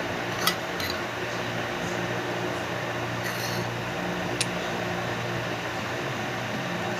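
A few light clicks and taps of a glue bottle against a bowl as glue is poured in, over a steady electrical hum.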